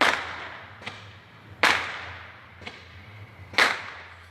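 Sharp bangs: three loud ones about two seconds apart with two fainter pops between them, each trailing off in an echo. Not fireworks, by the listener's account.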